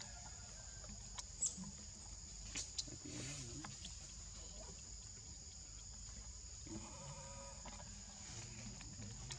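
Macaques making soft sounds, with a short wavering squeaky call about seven seconds in, over a steady high-pitched hiss of forest ambience and a few sharp clicks early on.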